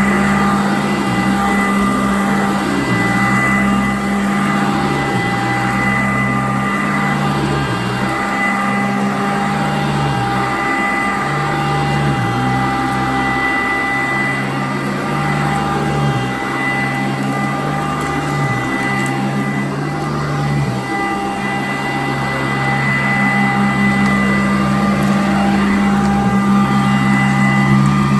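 Sanitaire vacuum cleaner running steadily on carpet, a constant motor whine with a low hum that shifts up and down every second or two.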